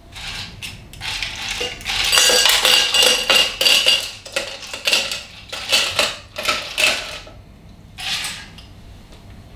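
Ice cubes clattering and clinking as they are lifted with metal tongs from a glass ice bucket and dropped into a stainless steel cocktail shaker: a rapid run of knocks and rattles with some metallic ringing, easing off after about seven seconds, then one short clatter near the end.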